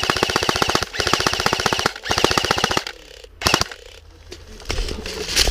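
Airsoft guns firing on full auto in three long, fast bursts, then a couple of single shots after a short pause.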